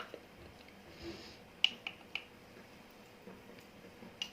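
Quiet kitchen with a few faint, short clicks of utensils and containers being handled, three in quick succession in the middle and one near the end.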